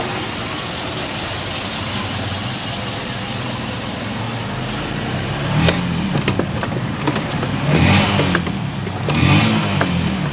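Diesel engine of a Mazda BT-50 station wagon running steadily. In the second half its sound swells three times, rising and falling in pitch, with a few sharp clicks among the swells.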